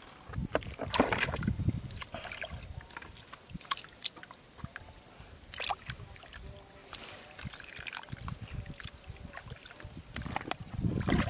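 Shallow muddy water sloshing and splashing, with wet mud squelching, as hands dig through river mud for freshwater clams. Irregular, with the loudest splashes about a second in and again near the end.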